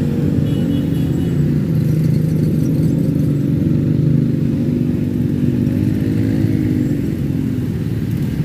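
Engines of slow, jammed traffic on a steep uphill road: cars, motorcycles and a bus running at low revs as they creep along, a steady low drone with small rises in pitch.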